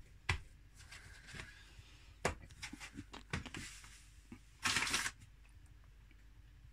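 Hands working soft biscuit dough on a kitchen worktop: scattered light knocks and taps, with a brief rustle about five seconds in.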